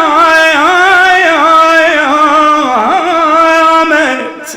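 A male radood, a Shia lament reciter, singing one long, ornamented line with a wavering pitch that fades away near the end.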